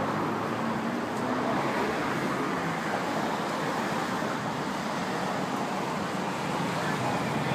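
Steady downtown city background noise, a continuous traffic-like rumble and hiss with no distinct events.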